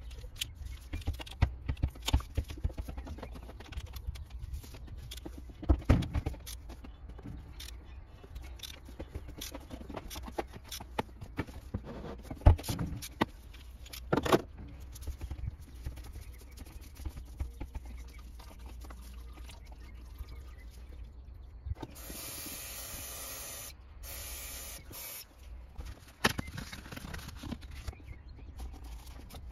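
Scattered clicks and knocks from an oil-filter wrench and an oil filter being handled under the bonnet, over a steady low hum. A hissing stretch of about three seconds comes near the end.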